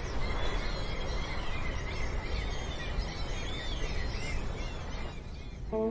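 Outdoor street ambience: small birds chirping over a low steady rumble, fading out near the end, where string music comes in.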